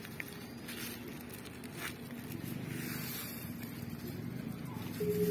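Sugar being poured from a plastic packet into a pot of milk on a small campfire: a soft rustle and hiss. Music with held tones comes in near the end.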